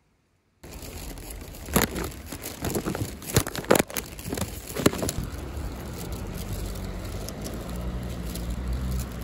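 Rustling, crackling and knocks of a phone camera's microphone brushing against clothing as it is handled, then a steadier low rumble of street noise outdoors.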